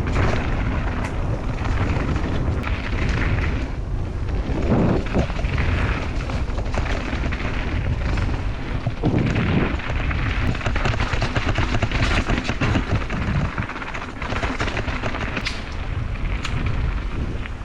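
Wind buffeting the microphone and a mountain bike rattling over rough dirt trail while riding: a loud, steady rumble with scattered knocks and clatters.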